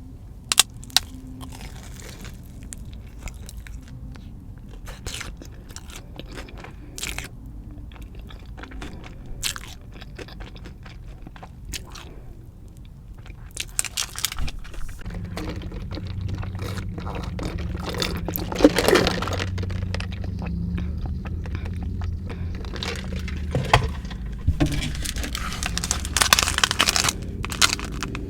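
Close-miked crunchy eating: bites into a batter-fried Korean cheese dog and chewing, with scattered sharp crunches at first and denser crunching later. A steady low hum comes in about halfway through.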